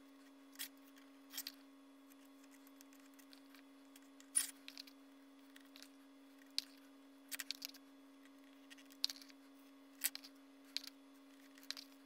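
Faint, scattered small clicks and taps of hand work as epoxy is spread around the edge of an injector plate, about a dozen in all, the loudest a little past four seconds in, over a steady low hum.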